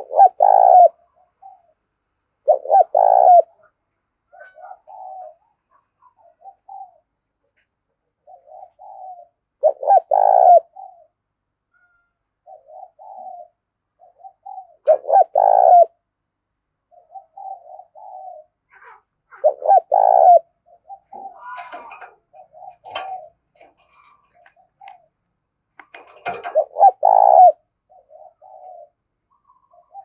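Spotted dove cooing: six loud coo phrases several seconds apart, with softer short coos in between. This is the calling song of a caged decoy dove.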